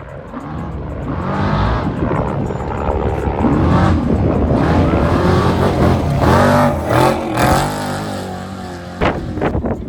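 Off-road race vehicle engine revving hard, pitch rising and falling again and again as it approaches and passes, loudest in the middle and fading toward the end, with a few sharp knocks near the end.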